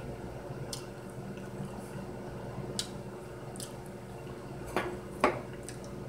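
Quiet handling of a plate and kitchen utensils: a few faint clicks, then two sharper knocks near the end, over a steady low hum.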